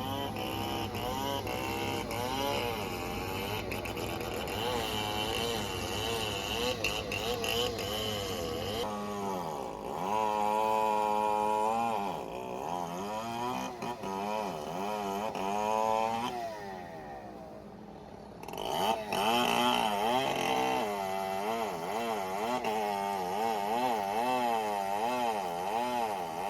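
Heavy machinery's diesel engine running under changing load, its pitch rising and falling over and over. There is a brief drop in level a little past the middle.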